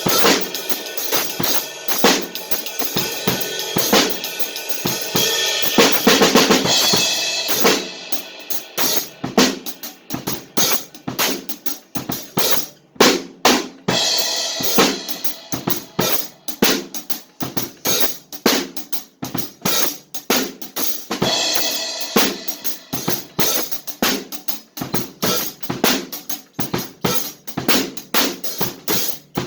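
Drum kit being played: a steady beat of kick, snare and cymbals, with heavy cymbal wash in the first third that gives way to sparser, separate hits.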